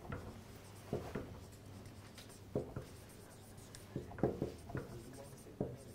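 Marker pen writing on a whiteboard: a run of short, irregular strokes and taps as the letters are formed.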